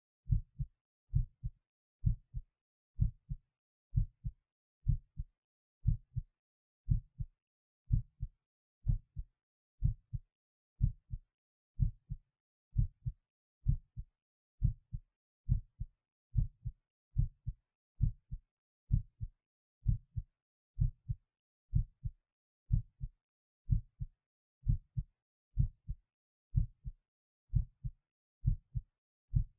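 A human heartbeat: each beat is a pair of short low thumps (lub-dub), repeating steadily at about one beat a second.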